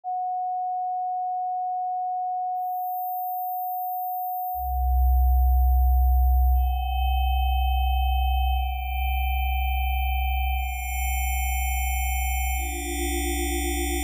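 Synthesised pure sine-wave tones being stacked one at a time. A steady mid-pitched tone sounds first, then a faint very high one. About four and a half seconds in a loud low hum joins, and further tones at both high and middle pitches come in every couple of seconds: the first stage of building pink noise from added sine waves.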